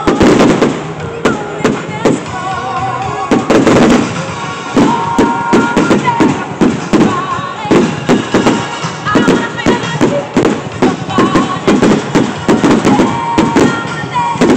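Fireworks display: aerial shells bursting and crackling in quick succession, several sharp bangs a second, with music playing alongside.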